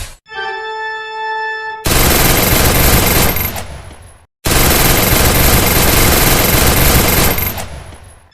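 A short held electronic tone, then two long bursts of rapid machine-gun fire as a sound effect, each fading out, with a brief gap between them.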